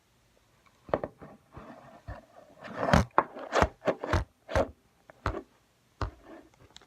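Things being handled close to the microphone: a run of irregular clicks, taps and scraping, thickest around three to five seconds in.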